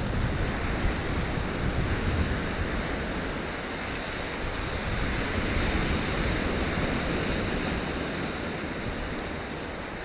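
Sea waves washing in a steady rush of surf that swells and eases, with gusts of wind rumbling on the microphone.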